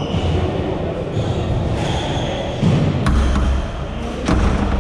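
Squash ball and rubber-soled court shoes on a wooden squash court: brief shoe squeaks early on, then two sharp knocks about a second and a quarter apart, each with a dull thud.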